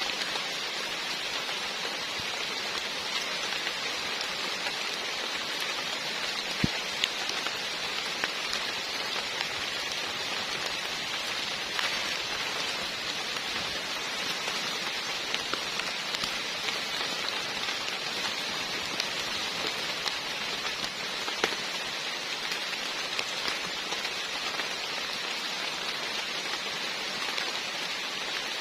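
Heavy rain falling steadily, with the odd louder drop striking close by.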